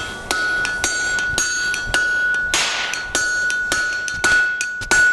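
Hand hammer blows on the end of a hot steel bar stood upright on the anvil, upsetting it: about three blows a second, with a steady high ring from the anvil carrying between the strikes.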